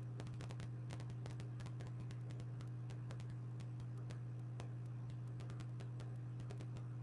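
A steady low electrical hum with many quick, irregular light clicks and taps over it.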